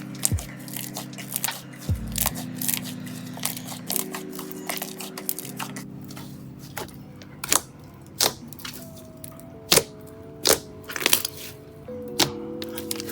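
Water-bomb slime being worked by hand, giving sharp, irregular clicks and pops, several a second at first and sparser later, over soft background music.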